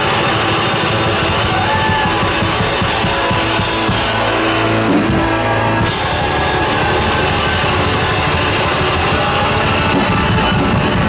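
Thrash metal band playing live: distorted electric guitars, bass and drum kit, loud and dense throughout, with a brief drop in the cymbal-range hiss about five seconds in.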